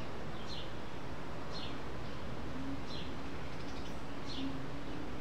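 A bird repeating a short, high, falling call note about once every second and a half, four times, over steady outdoor background noise.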